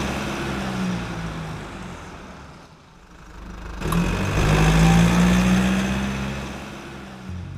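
Car engine revving, fading away, then revving up again about four seconds in and slowly dying down.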